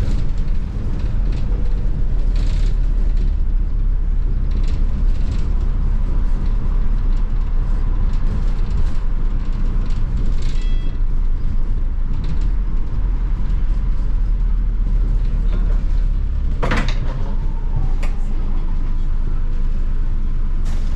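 London double-decker bus on the move: steady engine and road noise, with a short, loud burst of noise near the end.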